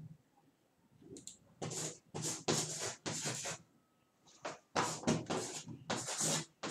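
Chalk scratching on a blackboard as words are written, a run of short scratchy strokes with a brief pause midway.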